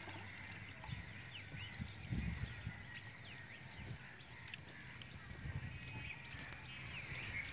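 Many short bird chirps and whistles over the low splash and slosh of hands working in shallow water, with a dull thump about two seconds in.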